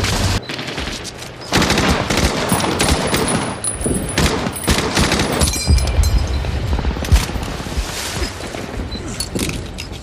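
Dense battle gunfire from WWII small arms: rifles and machine guns firing many overlapping shots in rapid succession. It is briefly lighter in the first second and a half, then continuous.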